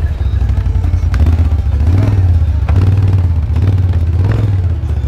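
ATV engine revving up and down under load as the quad crawls through deep snow over branches.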